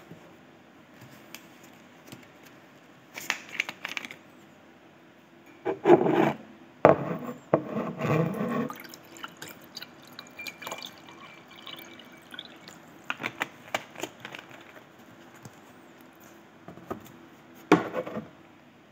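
Water poured from a plastic bottle into a cup, with scattered knocks and crackles as the bottle and cup are handled; the loudest clatter comes about six to eight seconds in, and another sharp knock near the end.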